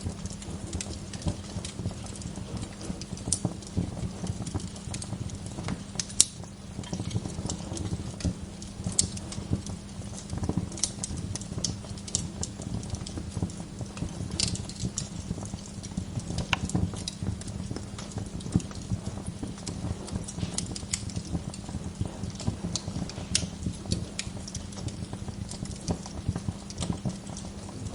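Wood fire burning in a fireplace: a steady low rumble of flames under constant irregular crackling, with sharper pops about six seconds in and again at about sixteen seconds.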